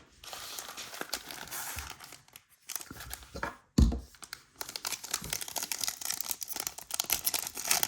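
Foil trading-card pack wrappers crinkling and tearing as packs are opened, with a single thump about four seconds in, followed by a stretch of quick crackling and clicking.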